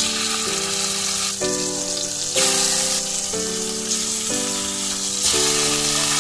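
Marinated chicken pieces sizzling in hot oil as they shallow-fry in a pan, a loud steady crackling hiss, with background music playing underneath.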